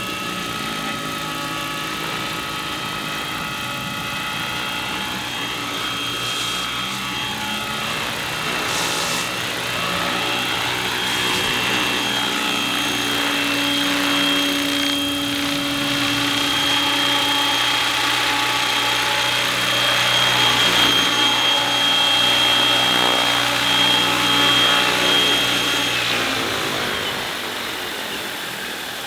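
Electric radio-controlled scale Robinson R22 helicopter, built on Logo 600 mechanics, hovering and manoeuvring low: a steady high motor and rotor whine whose pitch bends as it moves about, dying down near the end as it sets down.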